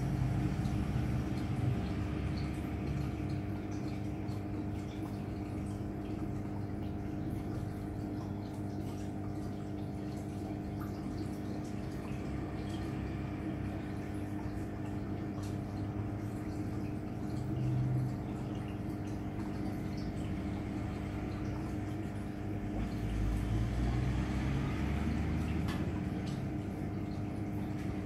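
Aquarium pump humming steadily, with water trickling and small drips. The low rumble swells briefly a couple of times.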